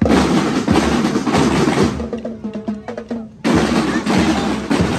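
A marching drum and lyre band playing: snare and bass drums beating with the ring of bell lyres. The drums ease off in the middle, then come back in loud about three and a half seconds in.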